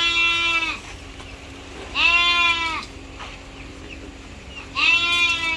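A farm animal calling three times, each call a pitched cry of just under a second, about two to three seconds apart.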